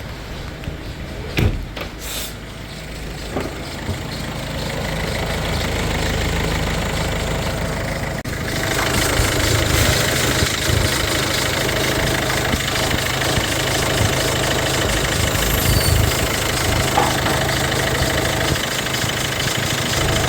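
Peugeot 3008's engine running, with its auxiliary drive belt making a lot of noise. A few sharp clicks come in the first seconds, and the running gets louder and fuller about eight seconds in.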